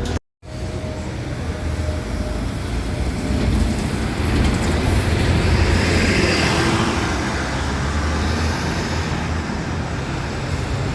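2018 New Flyer XDE60 articulated hybrid bus, with a Cummins ISL9 diesel and Allison hybrid drive, pulling away from a stop. A steady low drivetrain rumble swells about five to seven seconds in, then evens out.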